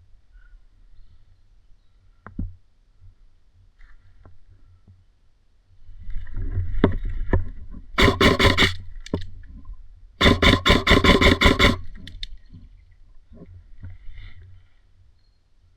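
Airsoft gun firing two rapid full-auto bursts, the second about two seconds after the first and slightly longer. Scattered single clicks and a stretch of rustling come before the bursts.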